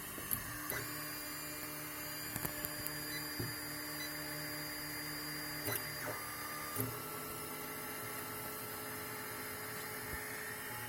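Anycubic i3 Mega 3D printer printing: its stepper motors whine in steady tones that jump to new pitches as the print moves change, over the hiss of its very noisy cooling fans, with a few short clicks.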